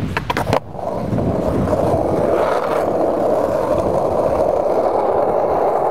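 Skateboard wheels rolling fast down a paved hill with a steady roar, after a few sharp clacks at the start.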